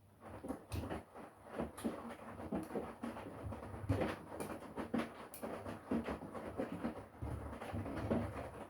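Front-loading washing machine drum starting to tumble wet laundry after a pause, with uneven sloshing and soft thumps over a low motor rumble.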